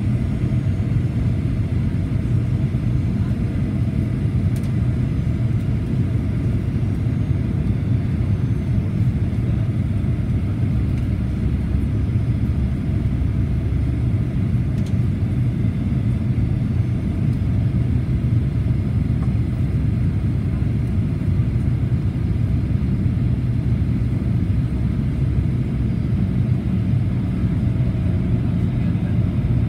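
Steady low rumble inside the cabin of a Boeing 737-800 descending to land: the noise of its CFM56-7B engine and the airflow, heard from a window seat beside the engine.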